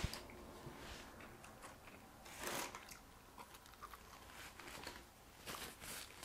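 Faint sounds of eating: chewing and handling of paper food wrappers, with a brief louder noise about two and a half seconds in.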